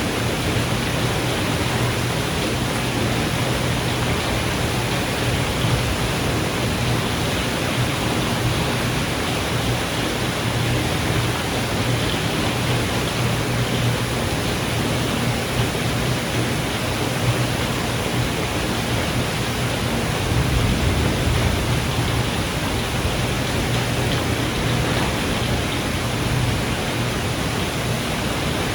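Steady, even rain of a thunderstorm, with a brief low rumble swelling about twenty seconds in.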